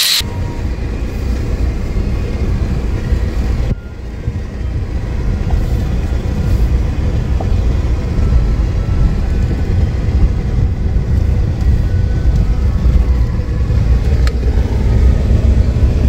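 Car driving on a rough dirt road, heard from inside the cabin: a steady low rumble of tyres and engine, dipping briefly about four seconds in.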